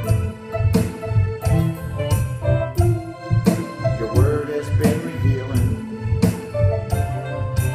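A man singing a slow song over a backing track with a steady beat, about one beat every 0.7 seconds.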